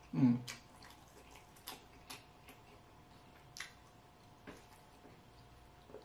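A person eating, with a short voiced 'mm' at the start, then quiet chewing with a handful of sharp, wet mouth clicks spaced a second or so apart.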